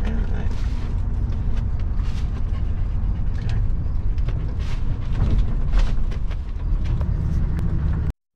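Inside a van's cab while driving: steady low engine and road rumble with scattered light rattles and clicks. The sound drops out for a moment near the end.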